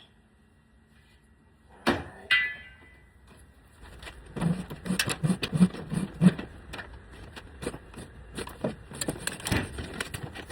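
Control wire being pulled out of electrical conduit: two sharp metallic clanks about two seconds in, the second ringing briefly, then a long run of irregular scraping, rattling and dull knocks as the wire drags through.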